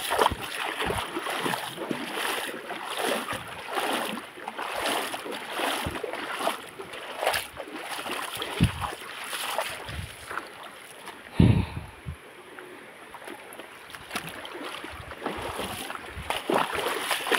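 Footsteps wading through shallow, pebbly river water, splashing and sloshing about once a second over the rush of the stream, with a heavier low thump about two-thirds of the way through.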